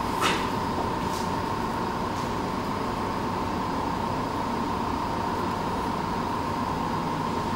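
A steady hum and hiss with a constant mid-pitched tone, broken by a sharp click just after the start and two fainter clicks in the next two seconds.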